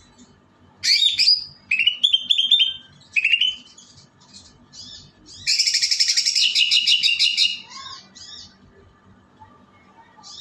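A songbird singing: a few short, rising whistled phrases, then about halfway through a loud, rapid run of notes lasting about two seconds, followed by a few short notes.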